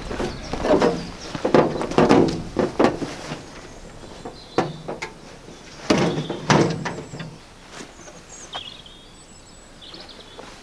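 Knocks and clatter of a removed Land Rover Series 3 front wing panel being handled and set down, in a first burst of bangs and a second about six seconds in; birds chirp faintly near the end.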